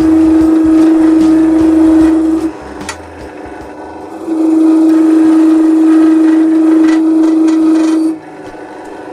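A spinning wooden workpiece scraped by a cutting tool, with a loud steady tonal squeal while the tool bites. It happens twice, each time for about three to four seconds, and stops sharply each time the tool is lifted, leaving the quieter machine running between cuts.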